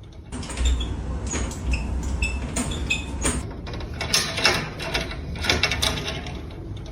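A door handle and latch rattling and clicking over and over, with a few short squeaks, as a cat works at the door to open it.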